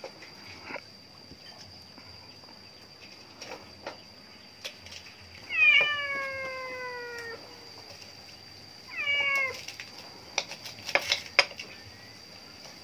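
A cat meowing twice: a long meow falling in pitch about six seconds in, then a short one about nine seconds in. A few sharp clicks of chopsticks against a metal wok follow near the end.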